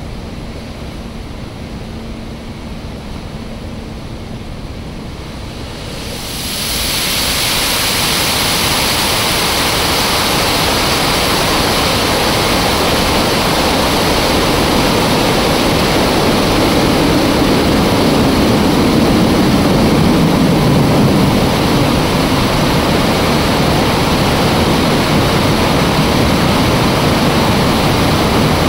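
Water rushing through a dam spillway as a steady roar, with a faint steady hum under it at first. About six seconds in the rush grows sharply louder and brighter, then holds, swelling slightly.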